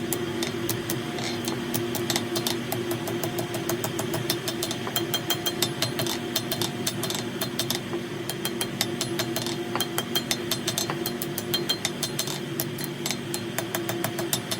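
A steady machine hum with many sharp, light clicks a few times a second, some with a short metallic ring.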